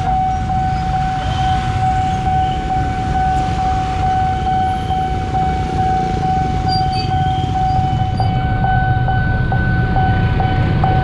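Motorcycle and three-wheeled bajaj auto-rickshaw engines running in dense traffic at a railway level crossing, under a steady high-pitched electronic warning tone.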